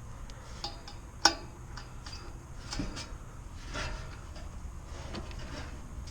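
Light, irregular metallic clicks and taps of a service wrench working a small set screw, with one sharper click about a second in.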